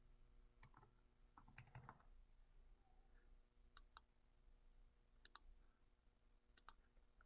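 Faint computer keyboard and mouse clicks. There is a short run of key taps about one and a half seconds in, then mouse clicks in close pairs a few times.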